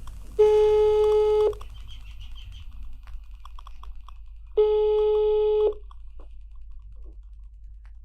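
WhatsApp outgoing video-call ringing tone, the call not yet answered: two rings of about a second each, about four seconds apart, over a low steady hum.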